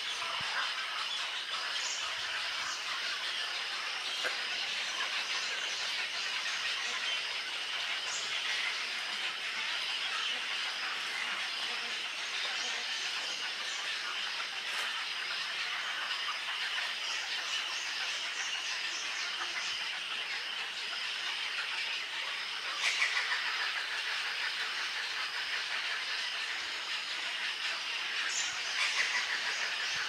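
Steady din of a large egret colony, many birds calling at once, with two louder flurries of calls, one about three-quarters of the way through and one near the end.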